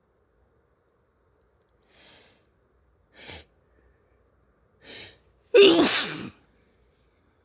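A person sneezing. Three short breaths come about a second and a half apart, then one loud sneeze with a voiced cry.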